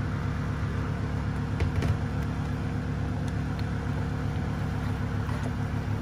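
Thick pineapple purée boiling and spluttering in a pan as it is stirred with a wooden spoon, with a few sharp pops, over a steady low hum.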